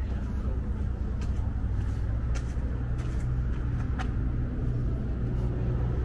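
Steady low rumble of road traffic, with a few faint scattered clicks.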